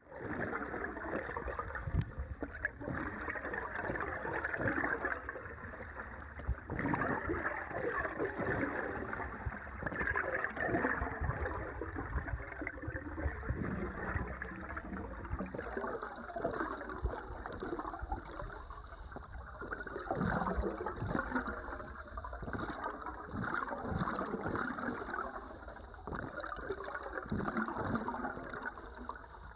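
Muffled, churning water noise picked up underwater through a camera housing, with irregular low knocks.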